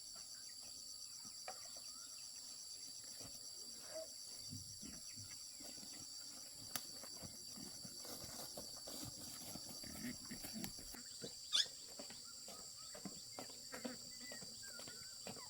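Insects, cicadas or crickets, trilling steadily in a high, pulsing chorus, with scattered small clicks, knocks and rustles. About two-thirds through there is a brief rising squeak.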